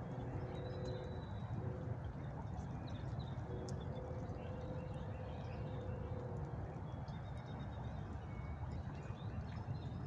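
Outdoor ambience: a steady low rumble with scattered faint chirps of small birds. A faint steady hum comes in twice, briefly about half a second in and again for about three seconds from the middle.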